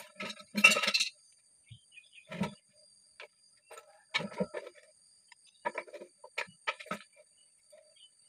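Metal hand tools clicking and knocking against a PVC hydraulic ram pump's waste-valve housing as it is taken apart. The sounds come in scattered short clusters with pauses between.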